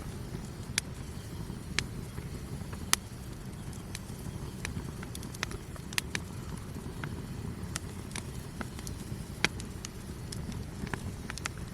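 Wood campfire crackling: sharp pops and snaps at irregular intervals over a low, steady rumble.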